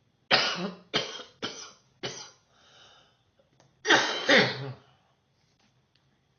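A person coughing: a run of four hacking coughs, a breath in, then two more coughs close together about four seconds in.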